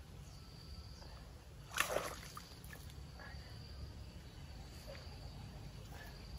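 Quiet outdoor ambience with a faint, steady high insect trill over a low rumble. One brief, sharp noise cuts in about two seconds in.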